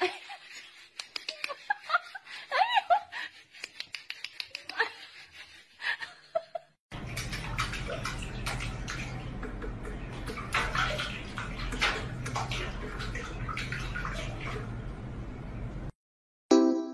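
Tap water running into a steel kitchen sink and splashing as a cat paws at the stream, a steady rush through the second half that stops suddenly. Before it, a run of small clicks and short high squeaks.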